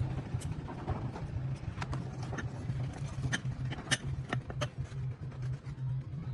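A steady low hum with scattered short, sharp clicks and knocks, about a dozen of them, the most pronounced near four seconds in.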